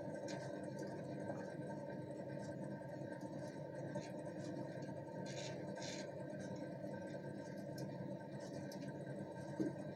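Microwave oven running with a steady hum, with a few scattered soft pops and ticks as microwave popcorn kernels begin to pop. A short knock near the end.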